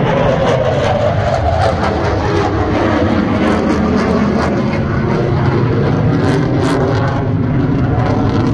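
Aircraft engine noise from an airplane flying high overhead: a loud, steady rumble that holds without breaks.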